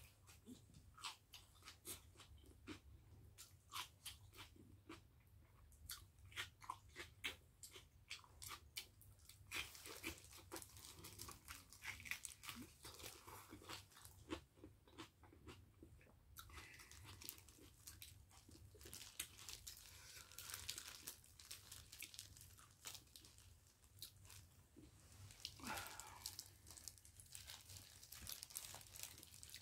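Faint, close-up chewing of whole-cabbage kimchi: many crisp, wet crunches as the cabbage stems are bitten and chewed, coming thicker from about ten seconds in.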